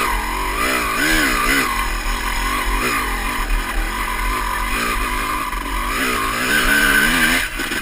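Honda CR250 two-stroke single-cylinder dirt bike engine under hard throttle on a steep rocky hill climb, revs rising and falling quickly as the rider works the throttle. It holds a steady high rev near the end, then the revs drop sharply.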